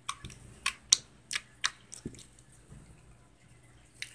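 Slime being poked and pressed with fingers, giving a quick run of wet pops and clicks in the first two seconds, then one more pop near the end.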